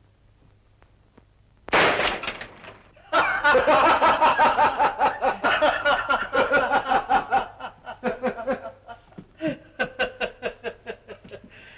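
A single sharp pistol shot, then a man's loud, hearty laughter in rapid rhythmic bursts that carry on for several seconds and taper off near the end.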